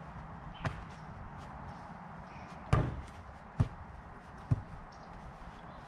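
Four thuds of a basketball in play, spread across a few seconds with the loudest about three seconds in, over a steady low background rumble.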